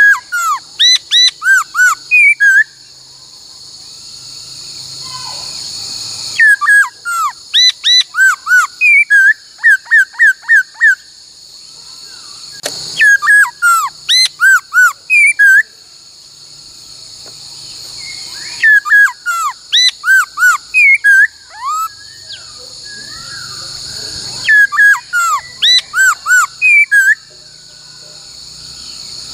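Laughingthrush (khướu) singing bursts of loud, clear whistled notes, many swooping downward. Each burst lasts about five seconds and they repeat about every six seconds, with a steady high hiss filling the gaps.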